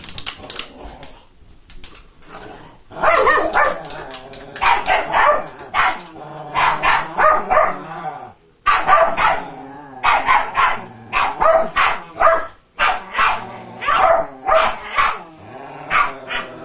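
Two whippets, an adult and a puppy, barking at each other in play over a plastic bottle: quieter for the first few seconds, then a long run of loud, repeated barks.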